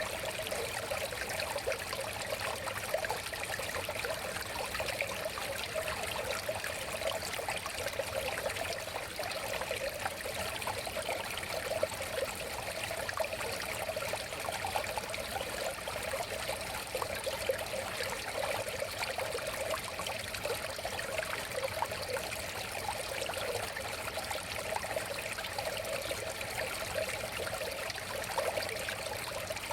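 A river flowing: a steady rush of moving water, even in level throughout.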